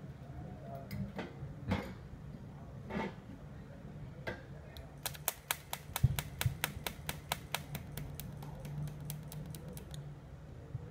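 TIG welder with an add-on pulse board, clicking at an even pace of about five pulses a second over a steady low hum, after a few scattered clicks.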